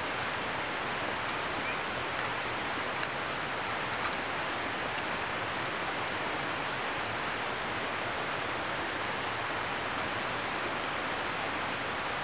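Steady outdoor background hiss in the woods, with a few faint, high bird chirps now and then.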